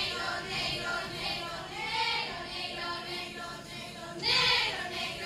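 A group of female voices singing or chanting together, with a louder swell of voices about four seconds in.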